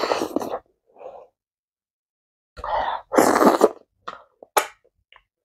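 Close-miked eating by hand, soft amala and egusi soup: wet sucking and smacking as food goes in off the fingers at the start, another wet mouthful about three seconds in, then a few short sharp lip smacks near the end.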